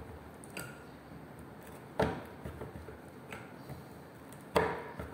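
Sharp plastic clicks and snaps as a spiked plastic piercing tool is pressed down onto a sealed buffer cartridge, punching open the seal over its wells: two loud clicks about 2 and 4.5 seconds in, with fainter ones before each.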